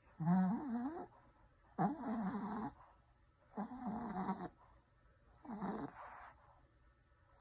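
A dog vocalizing while being petted: four separate drawn-out groans, each under a second long with a wavering pitch, coming about every two seconds.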